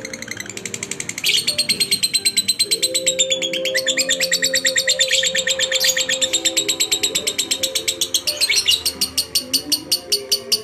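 Lovebird singing a long, fast chattering trill of short high chirps, about ten a second, louder from a little over a second in. Background music plays underneath.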